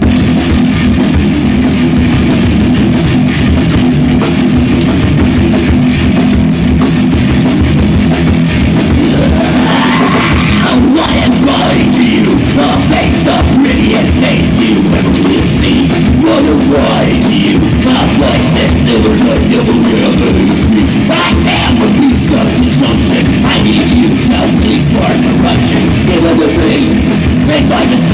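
Loud, heavy rock music from a band with distorted guitar, bass and a steady drum-kit beat, with a rising guitar slide about ten seconds in.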